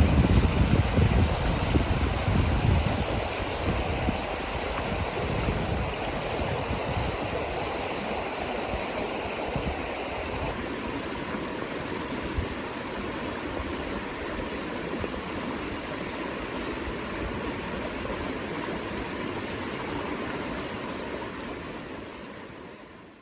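River water flowing steadily, with a low rumble over it in the first few seconds; the sound fades out at the end.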